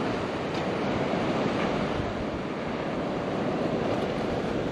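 Ocean surf washing onto the beach, a steady rush of breaking waves, with some wind on the microphone.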